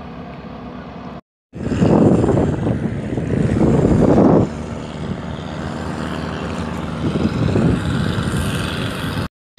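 Wind buffeting a phone microphone over open sea, a loud rumbling rush that is strongest for the first few seconds and then steadier. It cuts out briefly twice.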